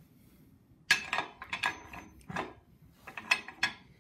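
Steel tools and bench-vise hardware clinking and rattling in several short bursts of metallic clicks and scrapes, the loudest about a second in.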